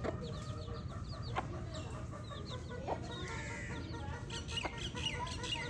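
A group of baby chicks peeping: many short, high chirps that fall in pitch, overlapping and repeating throughout. A few sharp taps sound among them, over a steady low hum.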